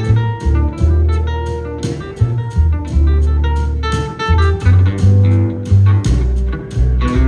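Live blues-rock band playing an instrumental break: electric guitar lead notes over a steady bass line and drum beat.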